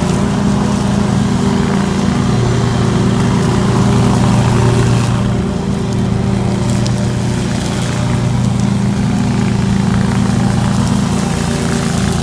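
Scag Tiger Cat II zero-turn mower running steadily while mowing, its engine and grass-bagging blower unit working.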